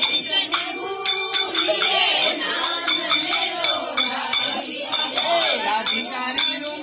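Group of voices singing a Kumaoni jhoda chanchari folk song, the melody rising and falling, over a steady metallic jingling beat.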